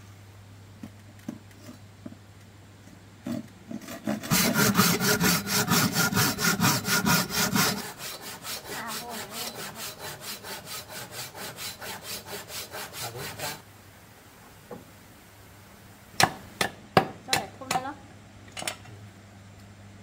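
Hand saw cutting through a wooden board in fast, even back-and-forth strokes. The strokes start a few seconds in, are loud at first, turn lighter after a few seconds, and stop after about ten seconds. A few sharp wooden knocks follow near the end.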